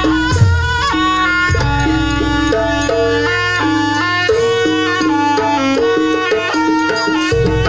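Jaranan Buto gamelan music: a reedy slompret (shawm) melody stepping from note to note over drums and percussion. The low drumming drops out about halfway through and comes back near the end.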